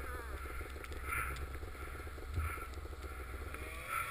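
Two-stroke snowmobile engine idling with a fast, even pulse.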